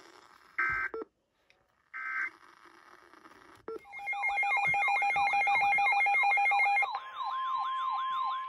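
Emergency Alert System data tones between two severe thunderstorm warnings: two short buzzy bursts of the digital code about a second apart. Then, from about four seconds in, a loud electronic alert tone with rapidly repeating sweeping pitches over steady tones, which near seven seconds settles into one steady tone.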